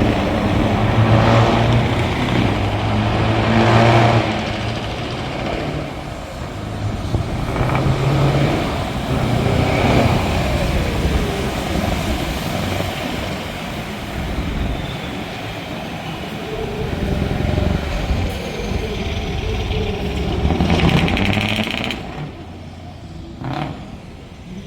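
Truck V8 engines with open exhaust pipes revving hard in repeated surges, each rev rising and then falling back toward idle, for a loudness measurement. The sound drops away near the end.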